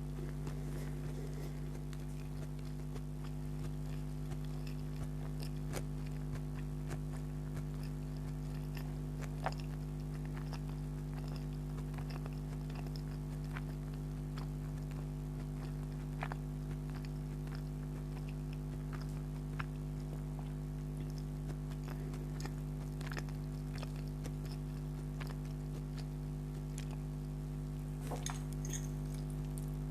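Close-miked chewing of spicy chicken spaghetti, with scattered soft clicks and mouth sounds, over a steady low electrical hum.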